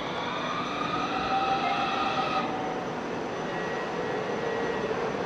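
Low-floor light-rail tram running, with high whining tones over its rumble that cut off suddenly about two and a half seconds in.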